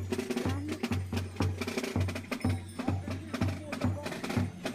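Carnival parade drums playing a steady march beat, about two low bass-drum strokes a second, with sharp clicking strikes over it and crowd voices mixed in.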